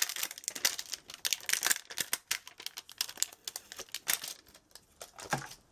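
Crinkling plastic as a clear stamp set's packaging is handled and the long stripe stamp taken out, in quick irregular crackles that thin out, followed by a couple of soft knocks near the end.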